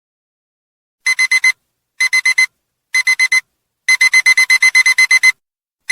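Electronic alarm-clock beeping from the countdown timer going off at zero. About a second in, rapid high-pitched beeps start in quick bursts of four, three times about a second apart, then a longer run of about a dozen beeps.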